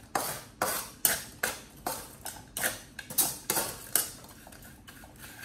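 Kitchen utensils striking sharply and rhythmically, about two to three strikes a second, as in cooking prep; the strikes stop about four seconds in.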